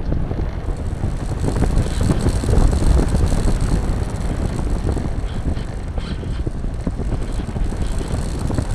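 Airflow rushing and buffeting over the microphone of a camera carried on an RC glider in flight, a loud, steady rush with constant low flutter.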